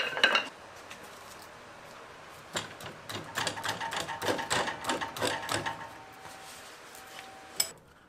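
Irregular clicks and knocks of a screen-printing jig being handled as the screen frame and its metal clamps are set over a wooden baseball bat, mostly in the middle of the stretch, with one sharp click near the end.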